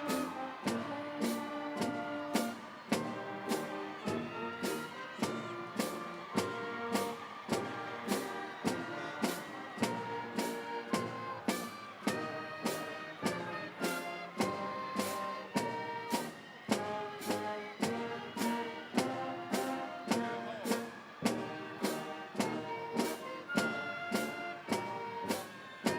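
Band music led by brass, with a steady beat of about two strokes a second under changing held notes.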